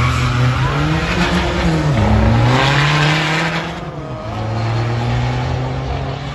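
Tuned diesel drag cars, among them a Seat Ibiza 6K2 with a 1.9 TDI engine, accelerating hard down the strip: engine notes climb, drop at a gear change about two seconds in and again near four seconds, then climb again. A louder rushing noise comes in around the middle.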